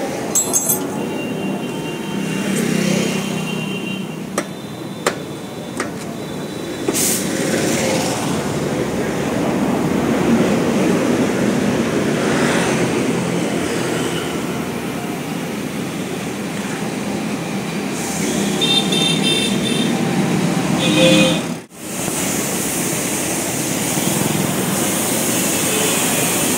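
Steady traffic and street noise, with scattered sharp clicks and knocks and a few short high beeps. The sound drops out briefly about 22 seconds in.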